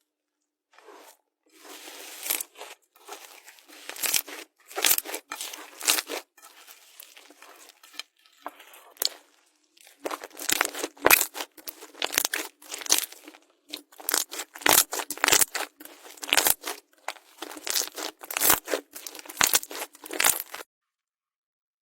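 Slime being squished and pulled by hand, making clusters of crackling and popping noises that stop shortly before the end.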